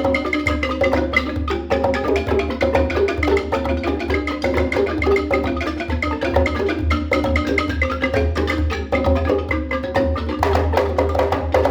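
Amadinda/embaire wooden log xylophone played fast: a dense, unbroken stream of mallet strikes on the pitched wooden keys, with many notes sounding each second.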